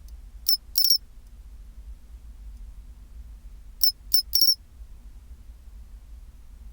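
Pine cricket singing its 'chin-chiro-rin' call: quick high, clear chirps ending in a slightly longer rolling note, in two phrases about three seconds apart.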